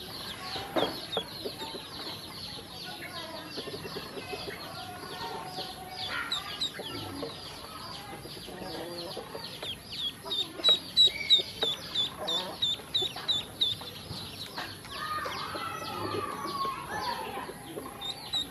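Ducklings peeping: a steady stream of short, high, downward-sliding peeps from several birds at once. About halfway through, one bird gives a louder run of evenly spaced peeps, about three a second, and some lower calls are mixed in here and there.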